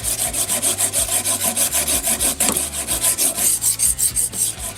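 A coarse 200-grit diamond stone on a Kazak Model 10 guided sharpener, oiled, is rubbed rapidly back and forth along a scissor blade: a rasping stroke about five times a second. This is the first coarse pass, to even out a bevel whose angle differs along the blade.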